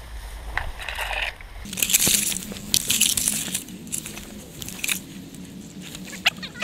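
Tall grass and reed stalks rustling and crunching as they sweep against the microphone while someone pushes through dense vegetation. The rustling comes in irregular bursts with a few sharp snaps.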